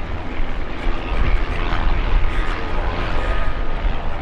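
Westland Lynx and Gazelle helicopters flying, a steady loud rotor and turbine noise with a heavy low rumble.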